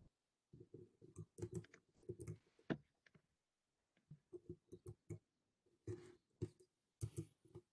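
Faint computer keyboard typing: irregular clicks in short runs, with a brief pause in the middle.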